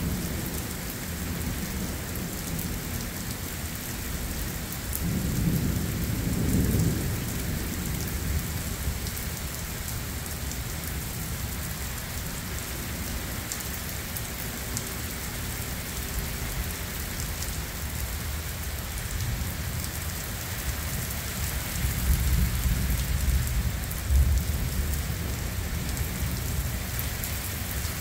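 Thunderstorm: steady rain falling throughout, with a low roll of thunder about five seconds in and a longer rumble starting a little past twenty seconds.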